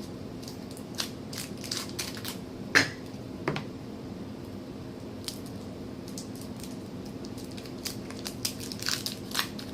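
Scattered light clicks and crinkles from handling Now and Later candies, with the sharpest click a little under three seconds in and a quick run of them near the end, over a faint steady hum.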